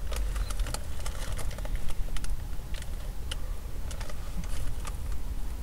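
Irregular light clicks and crackles from handling and eating food, over a low steady hum.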